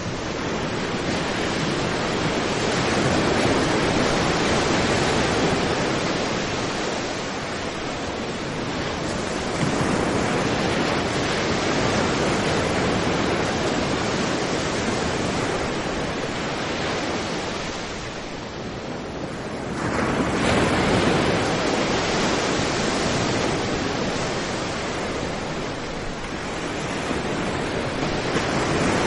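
Sea surf breaking on a sandy beach and washing up the shore, a continuous rush of water that swells and ebbs with each wave, dipping briefly about two-thirds of the way through before the next wave surges in.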